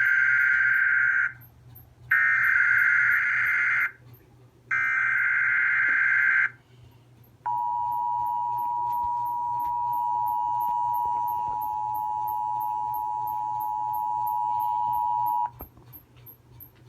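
Emergency Alert System SAME header: three short bursts of screechy data tones, followed by the two-tone EAS attention signal. The attention signal is held steady for about eight seconds and then cuts off. It marks the start of a tornado watch alert.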